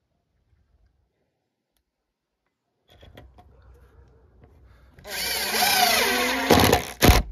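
Cordless impact driver driving a screw through a metal bracket into a wooden formwork board. The motor spins up about five seconds in, then it hammers in short, loud bursts near the end.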